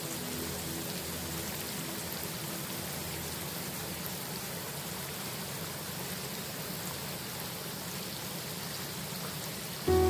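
Steady rain falling, an even hiss with no sudden sounds. The last piano notes fade out at the start, and piano notes come in loudly just before the end.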